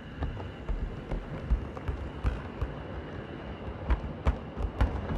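7mm-scale (O gauge) model train of coaches rumbling past over a model girder bridge: a low rumble of wheels on track with irregular clicks and knocks.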